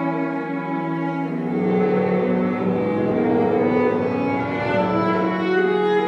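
Slow instrumental music of bowed strings, long held notes shifting in pitch every second or two, playing as the accompaniment to a dance.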